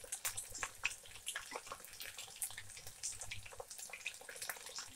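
Chicken 65 pieces deep-frying in hot oil in a kadai: a steady sizzle with many irregular crackles and pops as the batter-coated chicken fries toward golden.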